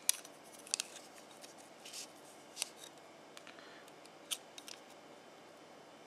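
A few sharp metallic clicks and light scrapes as a steel caliper is slid along and set against a steel sliding-door hinge arm. The loudest click comes right at the start, with smaller ones scattered through.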